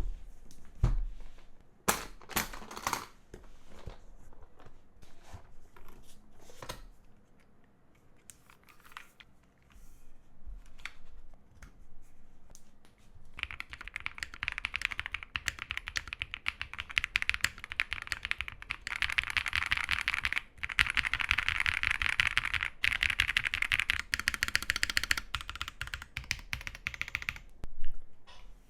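A custom mechanical keyboard: scattered single clicks and knocks at first, then about halfway through a long run of fast, steady typing, the keys clacking densely until a single loud click near the end.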